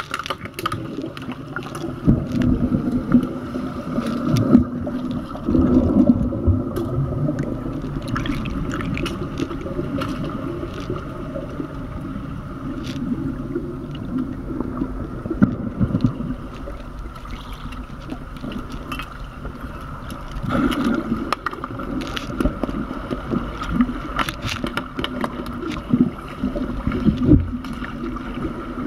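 Muffled underwater sound of a swimming pool during an underwater hockey game: water churned by swimmers' fins and bubbles, with a steady low hum and many scattered clicks and knocks. The churning swells louder several times as players crowd together.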